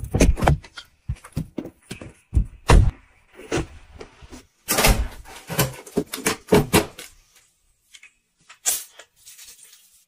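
A quick run of knocks, clicks and thumps from household objects being handled, among them a door's metal lever handle and latch being worked as the door opens. The sounds thin out to a few faint ticks over the last few seconds.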